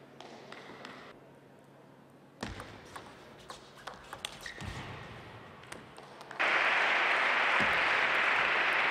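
Table tennis rally: a celluloid ball clicking off bats and table in quick strokes. About six seconds in, the crowd breaks into loud, steady applause as the point is won.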